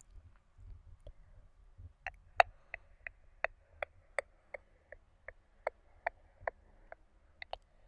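ASMR mouth sounds: a steady run of short, sharp mouth clicks, about three a second, starting about two seconds in.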